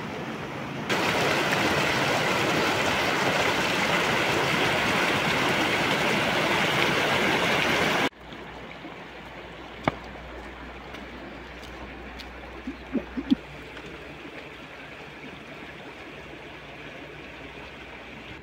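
Running stream water: a loud, steady rush that cuts off abruptly about eight seconds in. A quieter flow of river water follows, with a sharp knock about ten seconds in and a few more knocks a few seconds later.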